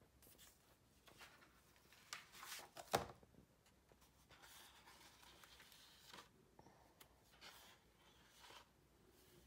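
Faint handling of an old clothbound book: the cover is opened and stiff pages are turned, giving soft paper rustles and swishes, with one sharp tap about three seconds in.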